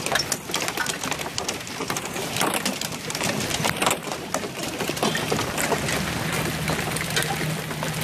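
Hail and rain falling, a dense irregular patter of small hits. A steady low hum joins about five seconds in.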